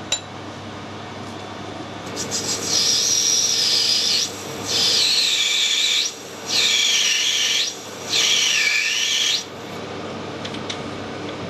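Brass bush being cut or abraded while it turns in a metal lathe: four scraping strokes of one to two seconds each, with short gaps between them, over a steady machine hum.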